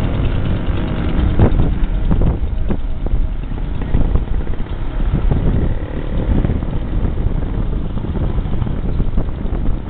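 Road traffic, with a coach bus driving past about four seconds in, under steady wind noise on the microphone.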